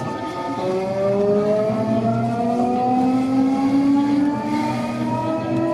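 Electric train's traction motors whining as the train accelerates away from a station, a set of tones climbing slowly and steadily in pitch over a running rumble, heard from inside the front car.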